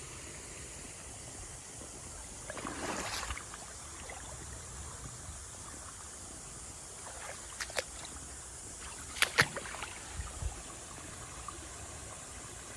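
Steady trickle and flow of a shallow creek. A short rustle comes about two and a half seconds in, and a few sharp clicks and snaps follow later, the loudest a pair a little past nine seconds in.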